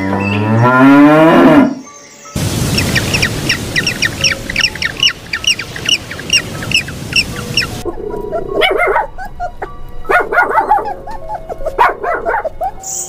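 A cow moos, the call rising in pitch, for under two seconds. Then a bird chirps quickly and repeatedly over a steady rushing background for about five seconds, and from about eight seconds in, animal calls come in short clusters.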